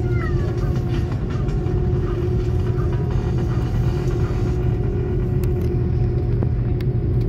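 Airliner cabin noise of an Airbus A330-200 taxiing, heard from a seat over the wing: a steady low rumble of the jet engines at low power with a constant hum above it.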